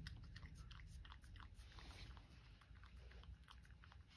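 A cat licking a paste of medicine mixed with lickable treat from a small dish: faint, quick, wet tongue clicks, several a second and irregular.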